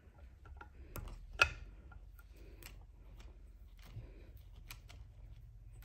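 Scattered light clicks and handling noises of fingers, hackle pliers and fly-tying vise while peacock herl is wrapped along a hook, with one sharp click about one and a half seconds in, over a faint low hum.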